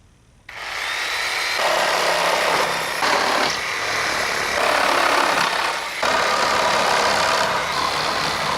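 Corded reciprocating saw (Sawzall) with a wood blade starting suddenly about half a second in and running under load, cutting through the nails between pallet boards. Its sound shifts several times as the blade bites and eases.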